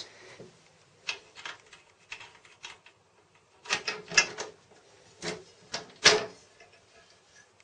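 Irregular mechanical clicks and clacks from the key lock and panel of a plastic and metal PC case being worked, several sharp clicks with a quick cluster in the middle.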